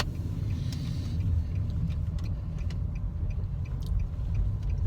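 Steady low rumble of road and engine noise inside a moving car's cabin, with a sharp click at the very start.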